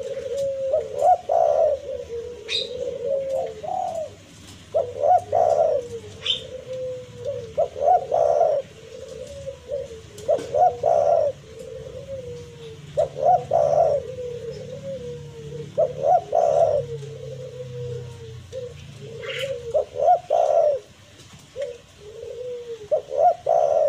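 Spotted dove (tekukur) cooing over and over, its call used to challenge and draw rival doves. A phrase comes every two to three seconds: a few soft low notes leading into a louder coo. A few short high chirps from another bird fall in between.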